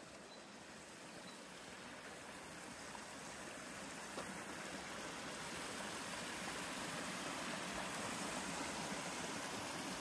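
A small rocky stream splashing and gurgling over a little cascade. It grows steadily louder as the water is approached.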